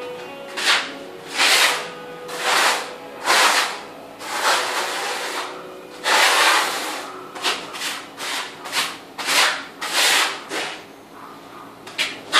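Notched trowel scraping tile mortar across a concrete floor, spreading and combing it into ridges in repeated strokes, roughly one a second.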